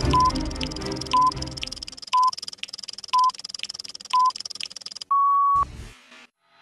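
Hour time signal: five short beeps a second apart, then a longer, slightly higher beep marking the top of the hour, over a clock ticking about twice a second. Background music fades out about two seconds in.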